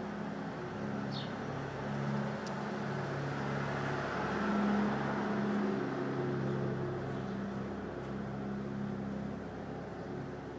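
A motor vehicle running, a low steady hum under a hiss that swells to its loudest about halfway through and then eases off, as of a car going by.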